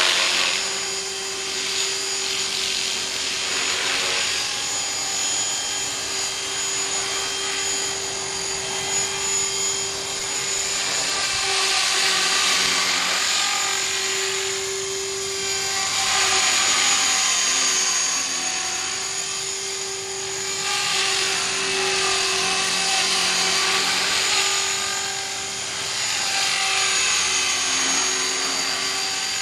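Align T-REX 450SE v2 battery-powered RC helicopter flying and hovering low: a steady high whine from its electric motor and gears over the rushing swish of the main rotor. The rotor noise swells and fades every few seconds as it manoeuvres.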